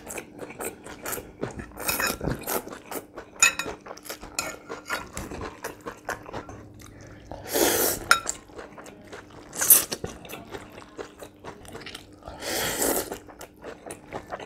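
Close-miked eating of noodle soup: wet chewing and smacking with small clicks of a fork against a glass bowl, and three long slurps of noodles in the second half.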